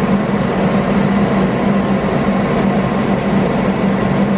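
Steady, loud machine hum with a rushing noise behind it, unchanging throughout.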